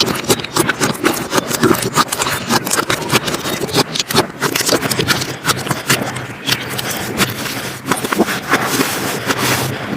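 Slime being squeezed and worked by hand, with a fast, irregular run of small sticky pops and crackles.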